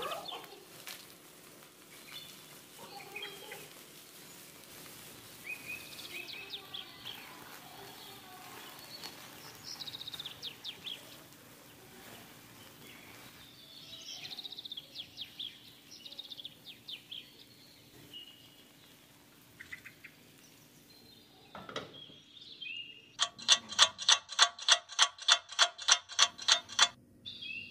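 Birds chirping in the background over a faint steady hum. Near the end comes a loud, fast run of about sixteen pitched pulses, roughly four a second.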